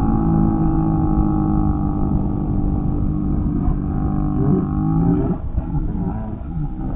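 Steady motor whine, plausibly the ride's winch hoisting the harnessed riders up on the swing cable, with wind rumbling on the camera microphone. The whine rises briefly and then cuts off about five seconds in.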